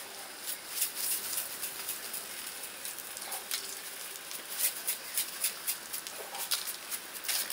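Beef sizzling on a grill: a steady hiss broken by many sharp, irregular pops and crackles.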